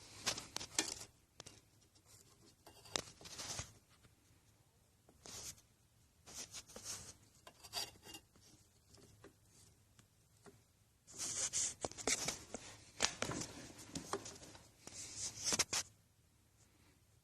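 Intermittent rustling, scraping and light clicks of hands-on handling, in short bouts with quiet gaps between, the busiest stretch near the end.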